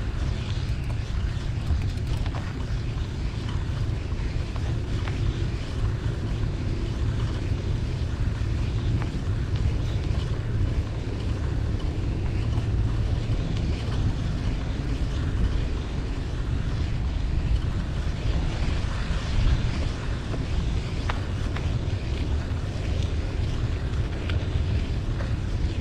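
Wind buffeting the microphone of a moving bicycle as a steady low rumble, over a haze of street traffic noise.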